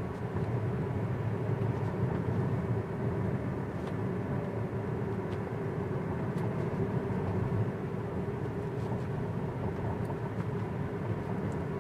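Steady tyre and road noise of a Tesla electric car cruising on Autopilot, heard from inside the car.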